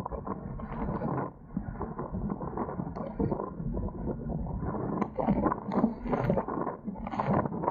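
Wind buffeting the microphone and water splashing and gurgling around a Dart 18 sailing catamaran under way, an uneven rushing noise with frequent small splashes and knocks.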